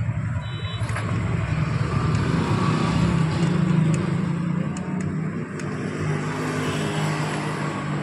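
A motor vehicle's engine running with a steady low drone that swells for a couple of seconds in the middle and then eases back. A few light clicks sound over it.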